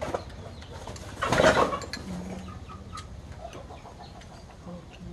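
Chickens clucking now and then, with chopsticks and spoons clicking against bowls, and one brief loud noisy burst a little over a second in.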